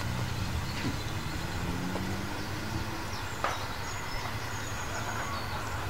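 Distant train on a heritage railway line, a steady low rumble with a faint engine note; a bird chirps faintly in the background.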